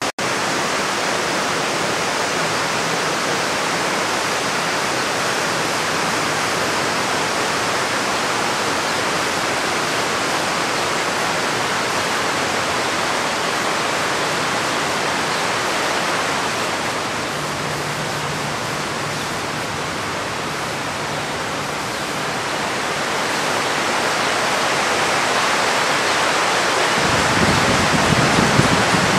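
A steady, loud rushing hiss with no separate events, like running water or wind; a low rumble comes in near the end.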